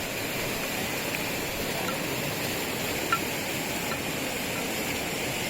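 Steady rushing of flowing floodwater, an even hiss with a few faint chirps over it.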